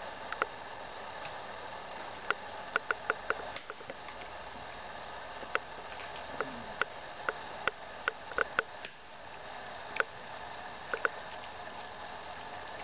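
A small dog chewing on a bunch of thin twigs: irregular sharp cracks and snaps as the twigs break in its mouth, some in quick clusters, over a steady low hiss.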